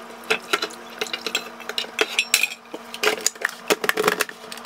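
Scraping and clattering as fried dried chiles are emptied from a pan into a plastic blender jar: a run of short, irregular scrapes and knocks. Near the end the jar is handled and set onto the blender base.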